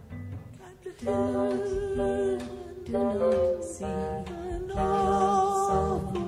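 Music: a voice singing long held notes, with no clear words, over low instrumental accompaniment. The voice comes in about a second in after a quieter opening.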